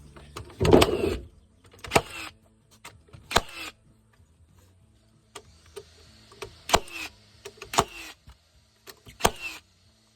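Nails being driven into deck framing lumber: six sharp strikes spread a second or more apart, each with a brief ring, the first a heavier, longer knock.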